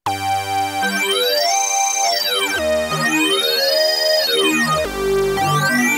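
Waldorf Blofeld synthesizer playing a bright, piercing wavetable sync lead: a short melody of held notes played from a keyboard. Its upper overtones sweep up and back down three times as the mod wheel pushes the wavetable sync effect toward maximum.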